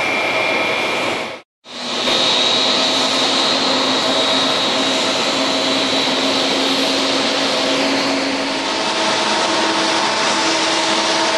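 Pratt & Whitney PW4000-series turbofan on a Boeing 777-200ER running as the aircraft taxis: a steady, powerful jet roar with a high fan whine. The sound cuts out for a moment about one and a half seconds in, and the whine shifts a little in pitch about eight and a half seconds in.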